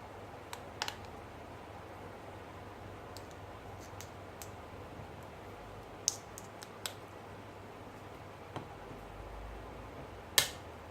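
Scattered small, sharp clicks and taps of tools and parts being handled during a smartphone display repair, irregular and about a dozen in all, the loudest a little after ten seconds in, over a steady low hum.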